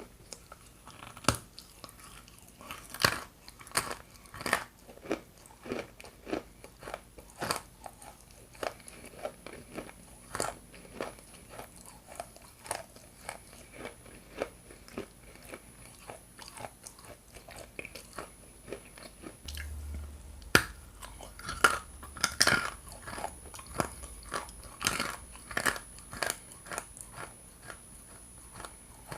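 Close-up crunching of a person biting and chewing hard chunks of edible Ural clay: irregular sharp crunches, with the loudest bites about three seconds in and again around twenty-one to twenty-three seconds in.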